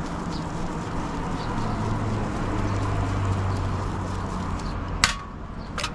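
Two sharp metallic clinks near the end, about a second apart, as a screwdriver and small carburetor parts knock against metal during the disassembly. Under them is a steady background with a low hum that swells and fades in the middle.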